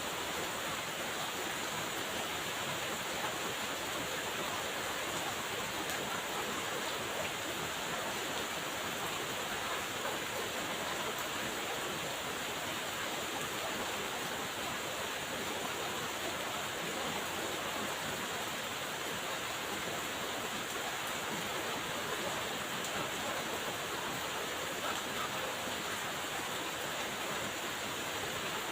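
Steady rain falling: an even hiss with no breaks or separate drops standing out.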